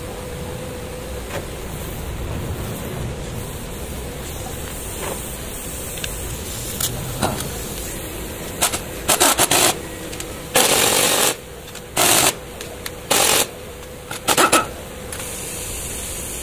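Pneumatic impact wrench undoing the top mount nut of a front shock absorber strut, in a run of about six short rattling bursts from a little past halfway, the longest about two-thirds of a second. By the end the nut is off.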